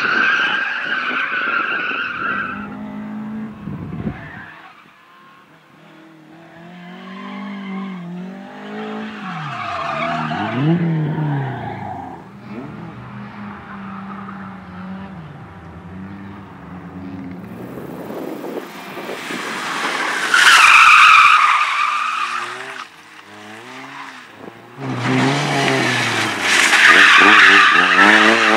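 Slalom cars driven hard through the course: tyres squealing through the turns, with engines revving up and dropping back between them. The squeal is loudest near the start, about two-thirds of the way through and near the end, with a quieter stretch a few seconds in.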